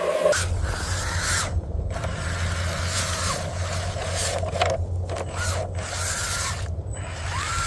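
Steady low engine rumble of heavy construction machinery with scraping and grinding noise over it, broken by several brief drops.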